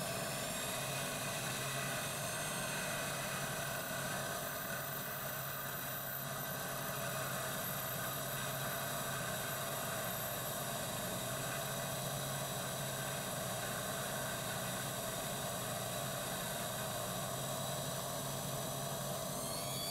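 Restored vintage watchmaker's lathe running steadily under a light cut as a hand-held tool parts off a small screw. It makes an even hum with a high whine over it.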